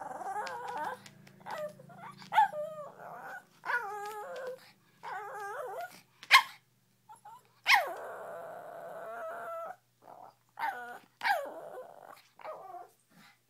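Shih Tzu vocalizing in a string of short whining, howl-like calls that bend up and down in pitch, broken by a few sharp yips, the loudest about six seconds in. She is 'calling' in answer to being told to call her mistress.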